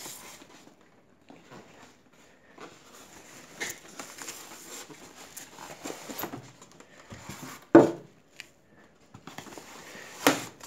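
Hands rustling and pulling foam-sheet and plastic packing wrap off a new split air conditioner unit, with scattered crinkles and crackles. Two sharp knocks stand out, about eight and ten seconds in.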